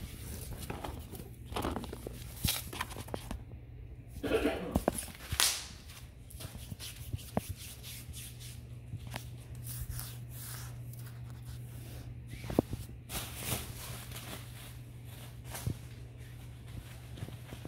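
Bubble wrap and foam packing peanuts crinkling and rustling in irregular bursts as a ferret scampers and burrows through them on a tile floor, over a steady low hum.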